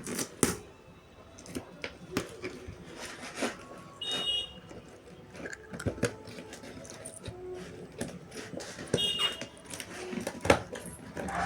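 Handling and rustling of packaging, with irregular clicks, taps and crinkles. Two short high beeps sound, about four seconds and about nine seconds in.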